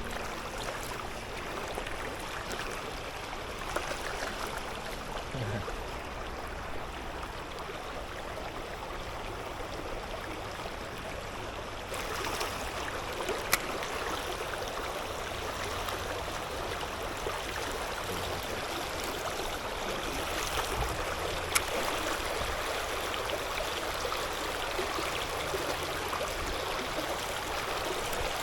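River water running: a steady rush that gets a little louder partway through, with a few sharp clicks.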